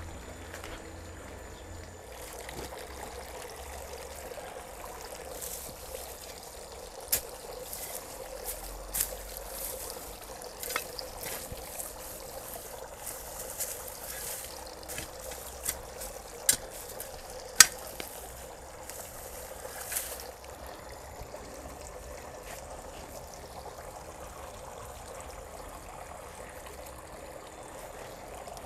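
A spade digging into garden soil: a run of sharp strikes and scrapes, the loudest about two-thirds of the way through, over a steady rushing hiss that carries on after the digging stops.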